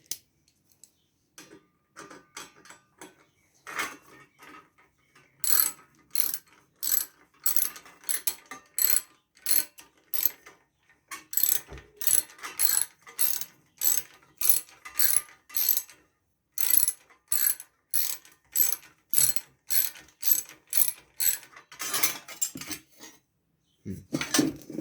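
Hand ratchet clicking in quick, even strokes, about two a second, as a fastener is turned on a small engine being reassembled. The clicking starts a few seconds in and pauses briefly twice.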